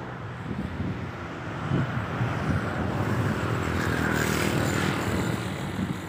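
Wind rumbling on the microphone, with a passing motor vehicle's noise swelling, peaking about four seconds in, and fading.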